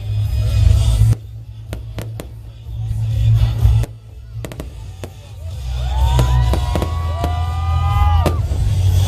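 Fireworks display: repeated sharp bangs and cracks of bursting shells over loud music with a strong bass.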